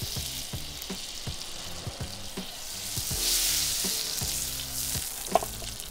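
Butter and a little oil sizzling as the butter melts in a hot frying pan over grill embers; the sizzle swells louder about three seconds in. A single sharp tap near the end.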